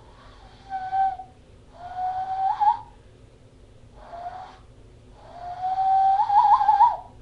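Cupped-hand owl call: a person blowing across the gap between clasped hands and thumbs, making four low, breathy hoots. The longer hoots rise slightly and end in a wavering warble.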